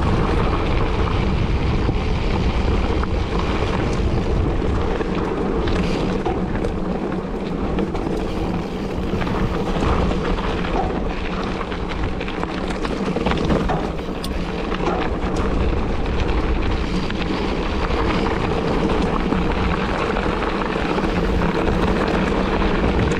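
Wind rushing steadily over the microphone and the rumble of a mountain bike riding a rough, rocky trail, with occasional faint knocks.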